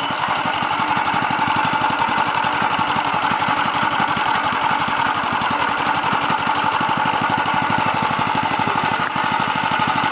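Mini bike's 212 cc single-cylinder four-stroke engine running steadily just after starting, with an even, fast firing beat and no revving.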